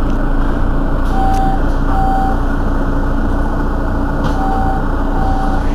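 Mercedes-Benz Citaro Facelift city bus idling at a stop with a steady engine hum. A short high warning beep from the bus sounds four times, in two pairs, one pair about a second in and one near the end.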